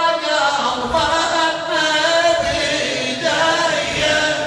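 A man's voice chanting an Arabic latmiya, a Shia lament, in long held melodic lines that slide from note to note.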